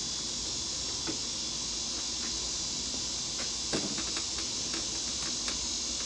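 Steady chirring of crickets, with a few light knocks and a quick run of small clicks about halfway through from lumber and tools being handled.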